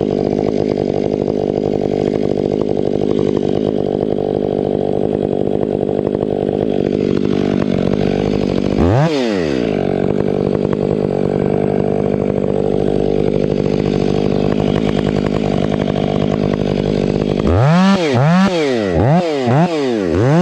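Stihl 500i fuel-injected two-stroke chainsaw running steadily at high revs while bucking firewood. About nine seconds in there is one quick rev up and down. Near the end it revs up and down about four times in quick succession.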